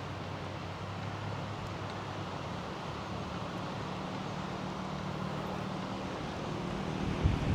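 A motor vehicle engine running with a steady low hum that shifts up in pitch about a second in, under a rushing haze of wind and road noise, with a few low bumps near the end.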